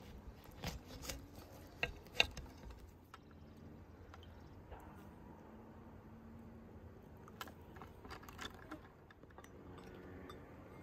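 A few light clicks and taps of small things being handled, the loudest about two seconds in and another cluster past the middle, over a faint steady background.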